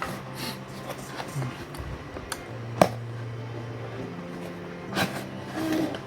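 Cardboard packaging being handled as a box is opened: rustling with a few sharp clicks and knocks, the loudest nearly three seconds in. Faint background music with sustained low notes runs underneath.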